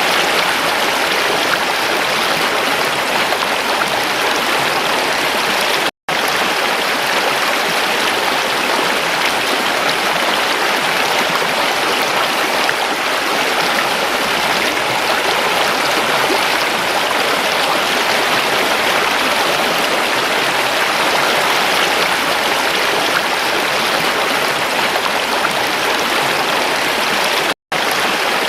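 Stream water rushing and splashing steadily. The sound cuts out for an instant twice, about six seconds in and near the end.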